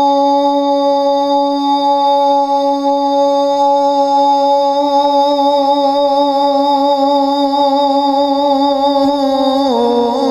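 A man's voice holding one long, unaccompanied sung note in a Urdu salaam recitation. The note holds steady, takes on a slight waver about halfway, then drops in pitch and breaks into a melodic run near the end.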